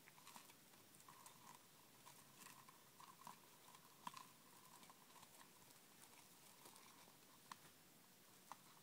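Faint, scattered ticks and scratches of a winter white dwarf hamster nibbling at a woven chew ball.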